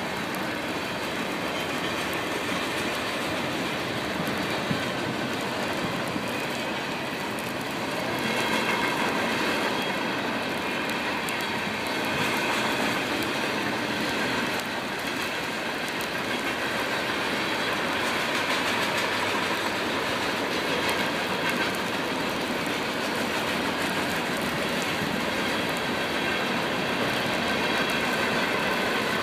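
Freight cars of a manifest freight train rolling past: a steady rolling noise of steel wheels on rail, with scattered clicks and faint high tones over it.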